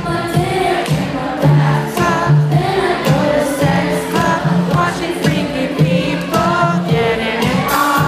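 Female pop vocalist singing live into a handheld microphone over an amplified electronic backing track with a strong bass line and a steady drum beat, heard through the venue's PA.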